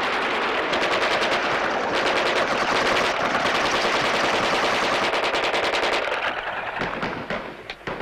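Rapid automatic gunfire from a deck-mounted machine gun and a hand-held submachine gun, a dense sustained rattle that thins out and stops in the last two seconds.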